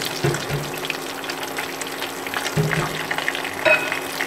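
Breaded chicken pieces deep-frying in hot oil in a small stainless-steel pot, sizzling and crackling steadily while chopsticks turn them. There is one sharp click near the end.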